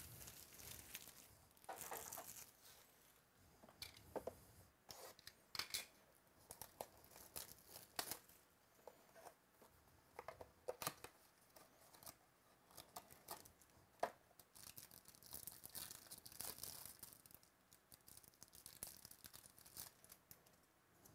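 Faint tearing and crinkling of trading-card pack wrappers as cards are handled, with scattered sharp clicks and taps; the loudest click comes about 14 seconds in.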